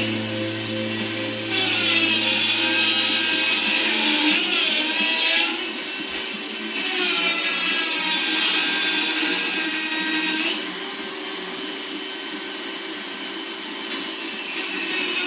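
Arc welding: the arc crackles and hisses in runs of about four seconds each as beads are laid. It stops between beads and starts again near the end. A low hum runs under the first few seconds.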